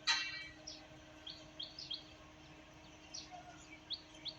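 A sharp metallic clang that rings out briefly at the very start, then birds chirping: short, high, downward-sliding notes repeating a few times a second over a faint steady hum.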